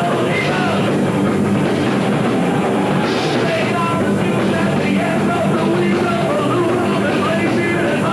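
A heavy metal band playing live: bass guitar, electric guitar and drums, with a singer, recorded on an amateur camcorder's VHS tape.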